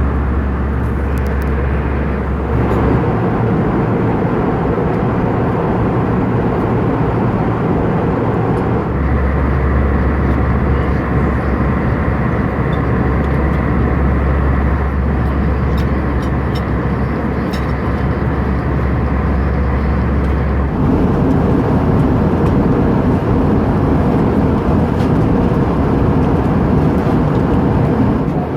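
Steady rush of cabin noise inside an Airbus A320-200 in flight: airflow and engine noise heard from a passenger seat. The tone shifts a few times, at about 3, 9 and 21 seconds in, with a low hum coming and going.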